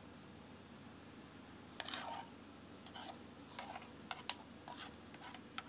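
Faint handling sounds while cake batter is poured from a bowl into a paper-lined pot: a low steady hum, then from about two seconds in, scattered light clicks and short scrapes.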